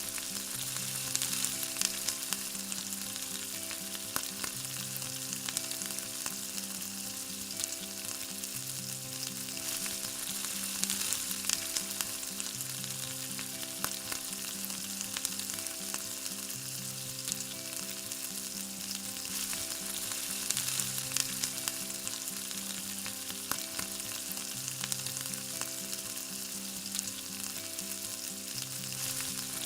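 Chicken frying in oil in a small clay pot, sizzling steadily with scattered small crackles. Soft repeating background music plays underneath.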